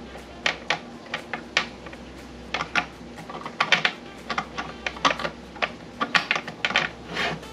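Hard plastic parts of a protein skimmer being handled and fitted together: irregular sharp clicks and clacks, several a second at times, over a low steady hum.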